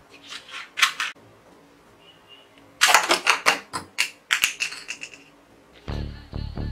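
Plastic toy rifle being loaded with a few light plastic clicks, then a quick run of sharp clicks and knocks for about two seconds as it fires plastic bullets that strike the targets and fall. Background music with a beat comes in near the end.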